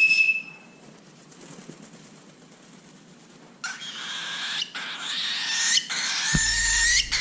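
A young cockatiel gives a brief high chirp, then from about halfway in a long, harsh, raspy screeching call in several stretches with short breaks. A low rumble hits the microphone near the end.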